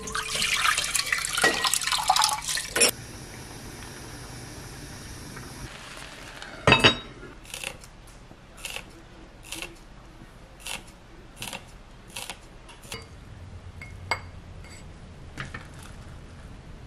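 Water poured from a glass bowl into a cast-iron pot, then one loud knock about seven seconds in. After it comes a steady series of short crisp snips, about one a second, as kitchen scissors cut a green onion.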